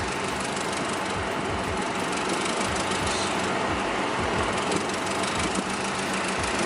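Honda Accord's four-cylinder engine idling low and steady with the air conditioning on full, a sagging idle under the AC load that the owner puts down to a weak battery.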